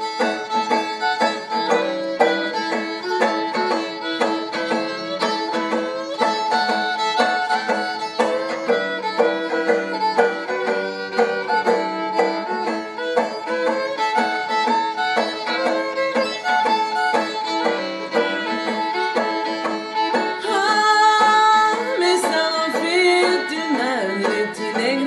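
Live Louisiana Creole fiddle tune: a violin bowing the melody over a plucked string accompaniment.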